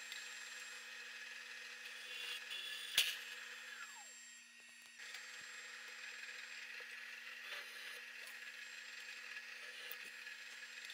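Drill press running steadily while holes in a sheet-metal panel are drilled and countersunk, with a sharp click about three seconds in and a brief dip in the running sound around four seconds.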